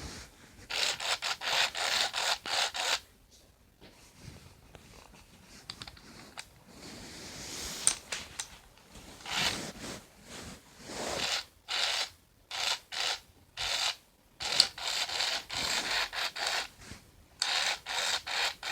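Scratchy rubbing and handling noise, close to the microphone, as a Furby toy is handled. It comes in bursts of quick strokes with short quiet gaps between them.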